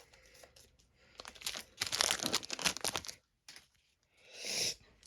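Plastic-foil trading-card pack wrapper being torn open and crinkled, a dense crackling that is loudest from about one to three seconds in, followed by a short soft swish near the end.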